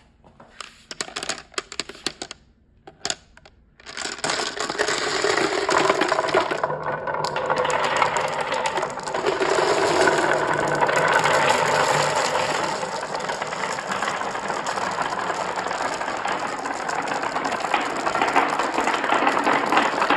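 Marbles on a marble run: a few scattered clicks, then from about four seconds in a dense, continuous rattle of many marbles rolling and clacking down the track together.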